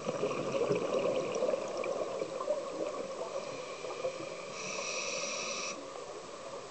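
Scuba diver breathing through a regulator underwater: a gurgle of exhaled bubbles at the start, then an inhale through the regulator as a steady whistling hiss, strongest for about a second after the middle.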